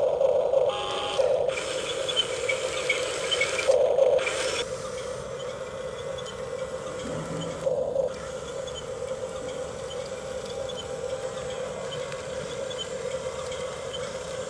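Electric motors of a radio-controlled construction vehicle whining steadily, swelling louder a few times as the machine is driven and its arm works.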